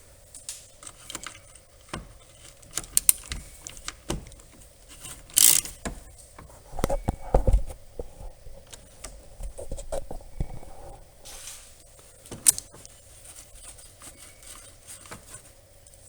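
Hand tools and plastic parts being handled: irregular clicks, taps and scrapes as screws are taken out and a plastic cover is worked loose, with a few louder knocks along the way.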